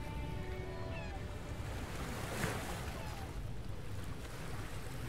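Sea waves washing onto a sandy shore, a steady surf wash with a low rumble and one wave breaking more loudly about halfway through. Faint held music tones fade out in the first second.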